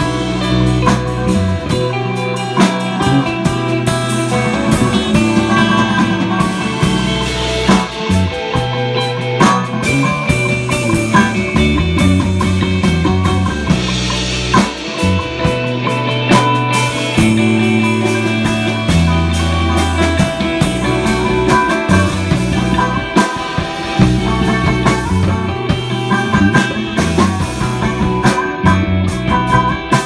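Live instrumental psychedelic rock jam: electric guitar, bass guitar, drum kit and a cigar box guitar playing together, with a moving bass line and steady drum hits.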